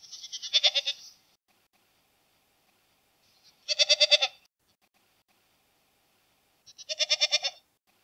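Domestic goat bleating three times, a few seconds apart. Each bleat is high and quavering and lasts under a second.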